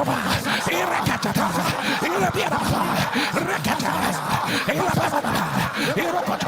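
Many voices at once, overlapping in a steady, unbroken mass: a congregation praying aloud together.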